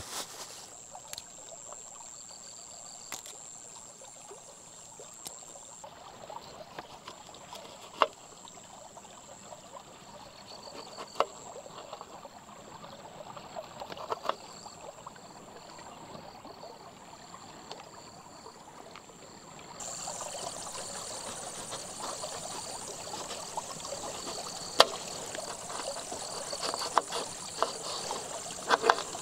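Creek water trickling steadily, with a steady high-pitched tone above it and a few scattered sharp knocks. The background grows louder about two-thirds of the way through.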